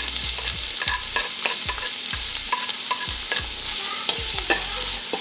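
Diced onion and garlic sizzling in a little oil in a stainless steel stockpot, with a wooden spatula scraping and knocking irregularly against the pot as it stirs them.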